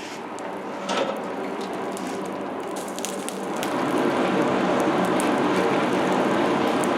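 Charcoal forge fire burning: a steady hiss with scattered crackles, growing louder about four seconds in.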